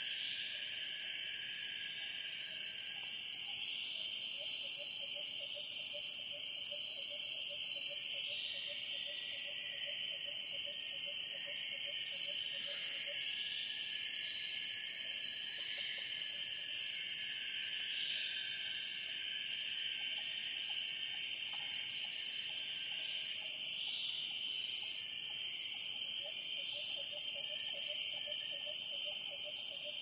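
Rainforest insect chorus: a steady, layered high-pitched drone of insects and cicadas. Under it a low, rapidly pulsing call runs from about four seconds in to about thirteen, and starts again near the end.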